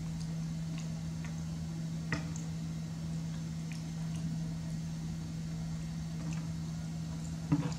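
A baby macaque eating a sweet: scattered small clicks and ticks of chewing and handling, with a sharper click near the end, over a steady low hum.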